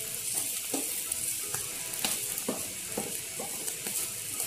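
Egg frying in hot oil in a pan, a steady sizzle, with a few short scrapes and taps of a steel ladle against the pan as it is worked under the egg to flip it.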